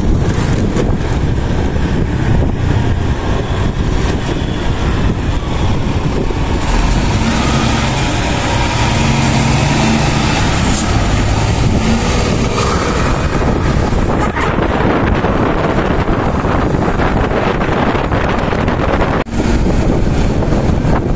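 Steady road-vehicle noise from close behind a moving Scania K410CB coach: engine drone and road rush with wind on the microphone. It briefly drops out near the end.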